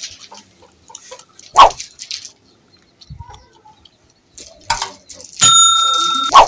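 Soft wet chewing and mouth clicks from a wooden chewing stick being chewed to soften it, with a short loud sound about one and a half seconds in. Near the end a click is followed by a bell chime that starts suddenly and rings for about a second.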